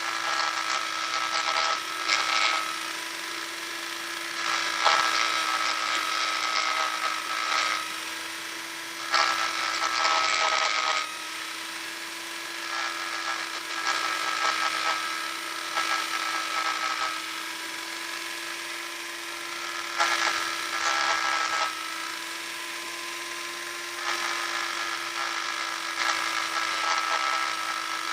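Handheld electric power sander running with a steady hum. Its pad rasps against the workpiece in louder passes of a few seconds each.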